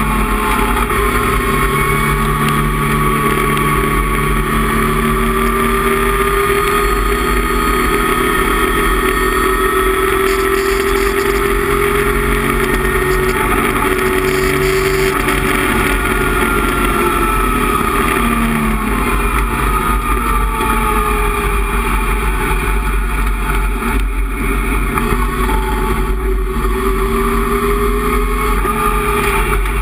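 Datsun 260Z's straight-six racing engine under hard use, heard from inside the cockpit, its pitch rising and falling slowly as the car accelerates and lifts. The note drops about two-thirds of the way through, then climbs again.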